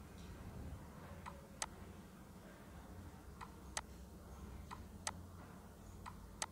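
Computer mouse button clicks: sharp single clicks coming in close pairs, four pairs a second or so apart, over a faint low hum.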